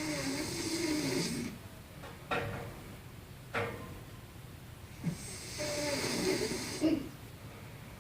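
Snoring: two long, rattling snores on the in-breath, about five seconds apart, with short sharp breath sounds in between.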